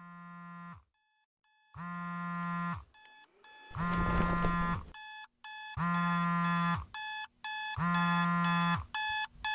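Smartphone alarm ringing: a buzzy electronic tone about a second long repeats every two seconds, with shorter, higher beeps between, and grows louder over the first few seconds. The ring about four seconds in is mixed with a hiss.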